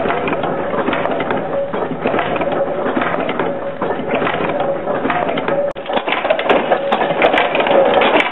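Nail-making machine running, its mechanism making a fast, steady clatter over a steady hum. The sound drops out for a moment a little past halfway through.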